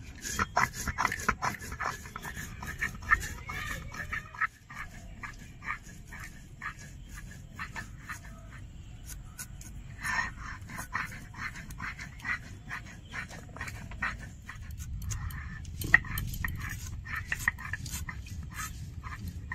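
Cumin seeds being ground wet on a flat stone slab with a stone roller (sil-nora): rhythmic rasping scrapes of stone on stone in spells, with a few short pauses.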